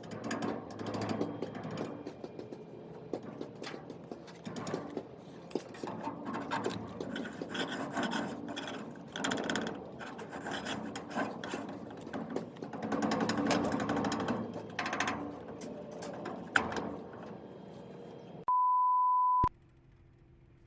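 Irregular scraping and rubbing with frequent sharp clicks and knocks, as of hands working with tools and materials. Near the end this cuts off for a single steady electronic beep about a second long, followed by a faint hum.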